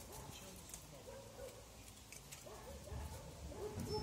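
Faint, soft animal calls: short low arching notes, a few of them clustered together in the second half.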